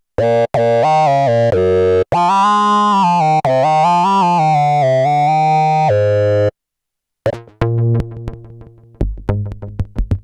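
Modal Electronics Cobalt5S synthesizer playing sustained, shifting chords for about six seconds. It cuts to a brief silence and then comes back with a rapid run of short, plucked notes in a different sound.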